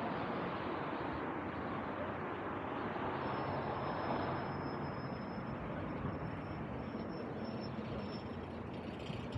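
City street ambience: a steady rush of passing vehicle traffic, with a faint thin high whine that comes in about three seconds in.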